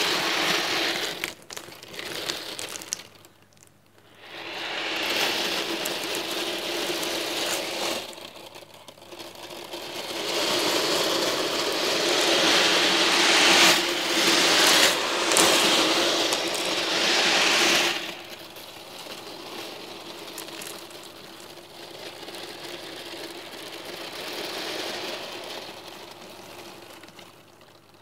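Some two thousand steel balls rattling and clattering against each other and their tray as it is shaken, a dense continuous jingle. It drops away briefly a few seconds in, is loudest through the middle, and eases off for the last third, over a faint steady hum.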